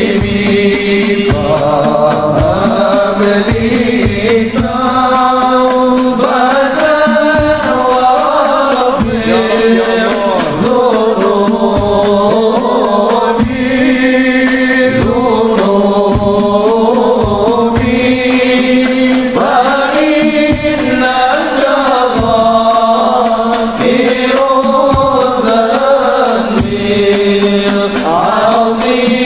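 Sholawat: slow, drawn-out devotional chanting with long melismatic phrases, over steady drum beats.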